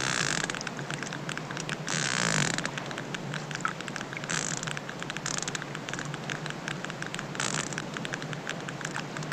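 Hydrophone recording of a baby sperm whale underwater: constant rapid clicking, its sonar, broken several times by short rough growls, which are perhaps its cry.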